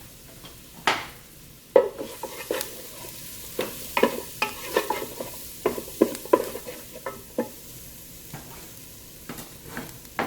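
Onion, mushrooms and garlic sizzling in oil in the Ninja Speedi's pot on its sear setting, with a utensil knocking and scraping against the pot as they are stirred. The knocks come thick and fast from about a second in until about two-thirds through, then a few more near the end.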